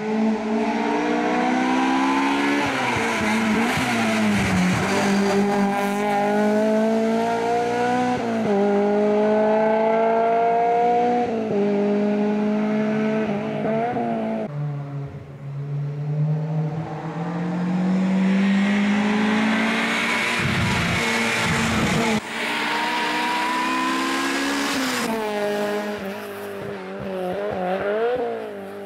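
Race car's engine accelerating hard through the gears up a hill-climb road: the pitch climbs in each gear and drops at each upshift, every two to three seconds, over several separate stretches.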